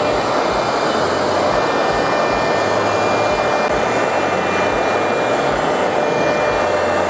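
Handheld gas torch burning with a steady, loud hiss as its flame is played over walnut to scorch and darken it.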